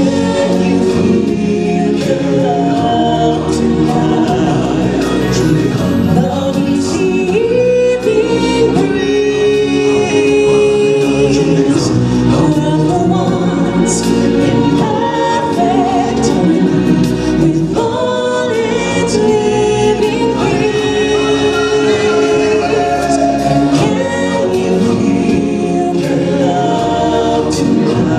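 Music with a choir singing, held notes over an instrumental backing.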